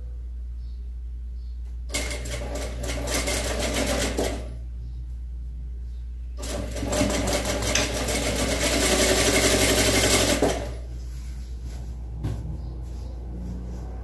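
Sewing machine stitching a seam through cotton fabric strips in two runs: a short one about two seconds in, then a longer, louder one from about six and a half seconds in, over a steady low hum.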